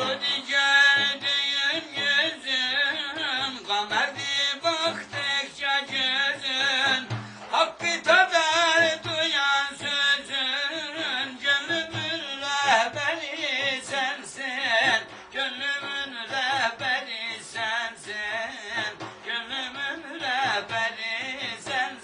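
Ilahi (Turkish devotional hymn) music: an ornamented melody with wavering pitch over a steady low drone.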